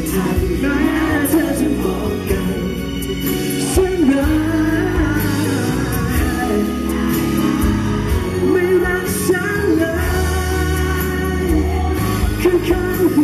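A man singing a pop song live into a handheld microphone over backing music.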